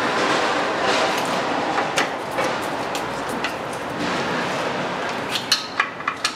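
Steady background rushing noise, with a quick run of sharp metallic clicks and clinks near the end as the new rear brake rotor and its retaining screws are handled at the hub.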